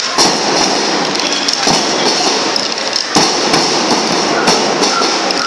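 School band-melam percussion: side drums and cymbals playing a dense, continuous beat, with heavier bass-drum strokes about every second and a half.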